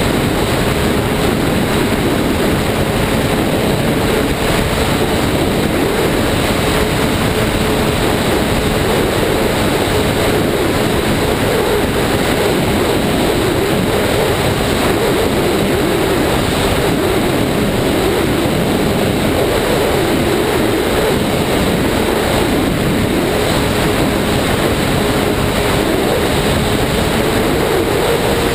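Ski-Doo snowmobile running steadily along a trail at riding speed, its engine note wavering a little and rising slightly near the end, over a steady rushing noise.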